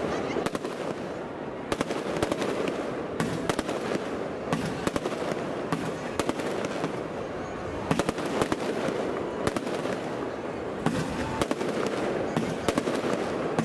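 Aerial fireworks display bursting close overhead: a continuous run of sharp bangs, many in quick succession, over dense crackling.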